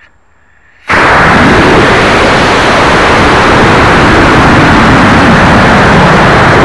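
An Estes Leviathan model rocket's G64W-7 reload motor ignites about a second in. What follows is a sudden, very loud, steady rushing roar of motor exhaust and air rushing past as the rocket climbs, heard through a keychain camera strapped to the rocket's body. The roar is loud enough to peg the little microphone at full level.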